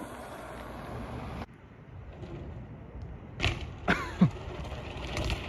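BMX bike rolling down a rough concrete slope, tyres running on the grainy surface, with a few sharp knocks and clatters from the bike about three and a half and four seconds in and once more near the end, and a short falling squeal around four seconds in.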